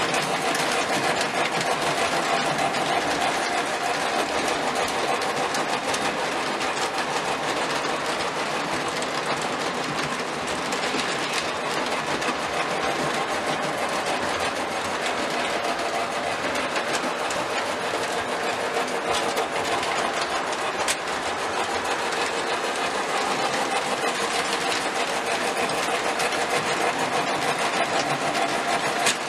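O-gauge model trains running on O27 tubular track: a steady whir of the electric locomotive motors with the rattle of metal wheels on the rails.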